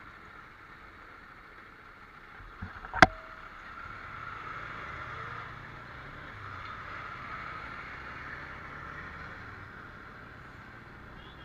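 Motorcycle on the move, heard as steady wind rush and engine noise on the bike-mounted camera, picking up a little about four seconds in. A single sharp knock about three seconds in.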